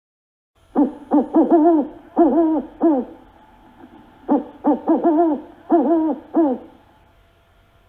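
Pigeon cooing: two phrases of several coos each, every note rising then falling in pitch, with a pause of about a second between the phrases.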